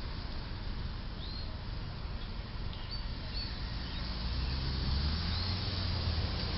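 Street traffic ambience: steady road noise with a low vehicle engine hum that builds from about four seconds in as cars approach, and a few short bird chirps over it.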